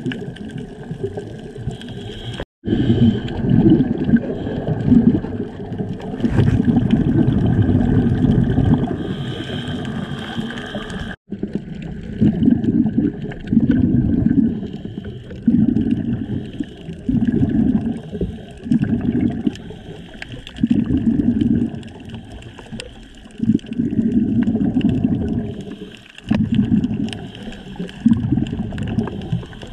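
Scuba diver's exhaled bubbles from the regulator, heard underwater as low bubbling and gurgling. From about twelve seconds in they come in irregular surges every second or two. The sound cuts out briefly twice.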